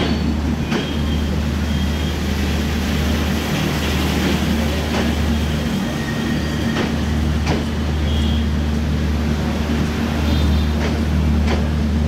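Intercity train's LHB passenger coaches rolling past as the train pulls out of the station, the wheels clacking over rail joints every second or so at uneven intervals over a steady low hum.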